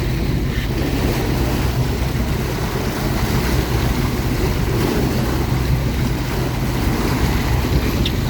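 A fishing boat's motor runs steadily with a low hum, under wind rushing on the microphone and water washing against the hull.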